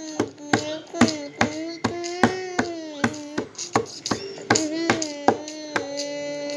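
A song playing: a held, wavering singing voice over sharp percussion hits that fall about two to three times a second.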